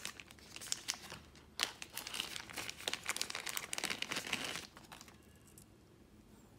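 Translucent plastic pouch crinkling as it is handled, opened and the earphone cable pulled out of it, a dense run of crackles that stops a little under five seconds in.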